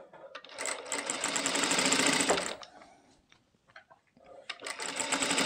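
Industrial sewing machine stitching a seam in two runs. The first run speeds up over about two seconds and stops about halfway through. The second run starts again near the end.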